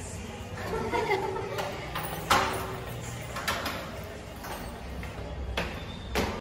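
Indistinct voices in the background, with a few sharp knocks or thuds at irregular intervals, the loudest a little over two seconds in.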